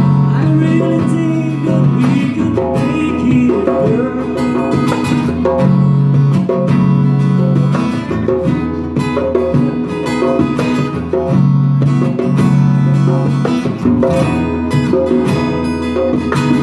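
Live acoustic band music: an acoustic guitar strumming chords, accompanied by a djembe played by hand.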